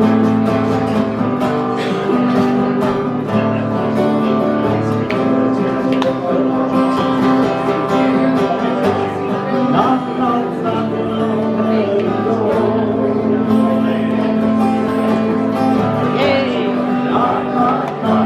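Two acoustic guitars played together live, strumming steady chords.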